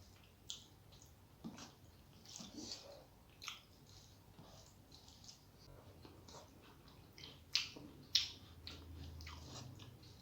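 Close-miked chewing and wet mouth smacks of a person eating rice with dal and curries, irregular, with two sharper smacks about three-quarters of the way in.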